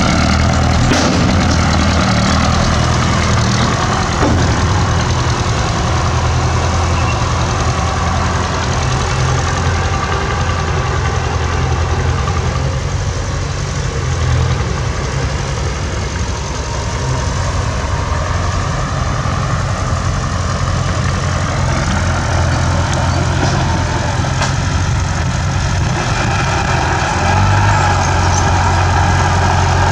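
Bulldozer's diesel engine running steadily under work. It eases off a little about halfway through and picks up again near the end.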